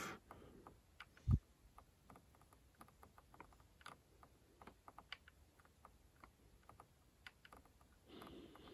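Scroll wheel of a Spektrum NX8 radio transmitter clicking faintly and irregularly as it is rolled through a long menu list. A single soft low thump about a second in.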